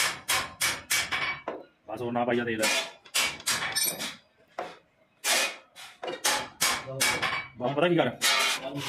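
Rapid sharp hammer blows on the metal frame of a grass cutter under repair, coming several a second in runs with short gaps between them.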